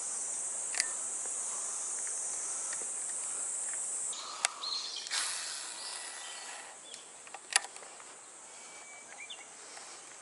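Cicadas singing, a steady high-pitched buzzing drone that fades somewhat after about five seconds. A few sharp clicks, about a second in, at about four and a half seconds, and at about seven and a half seconds, the last the loudest.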